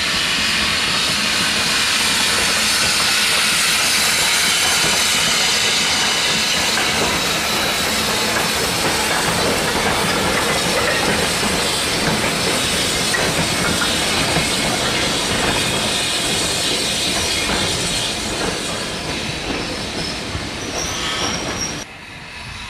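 Industrial saddle-tank steam locomotive passing close with a goods train: a loud, steady hiss of steam, then the wagons rolling by. The sound eases off near the end and drops away suddenly.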